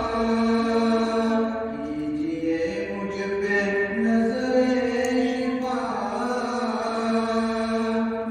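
A solo voice chanting in long, drawn-out melodic phrases, holding each note before stepping to the next.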